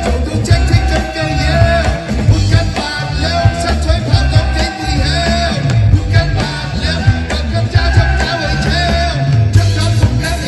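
Live band playing an upbeat rock-style song, with drums, bass and a melodic lead line over them.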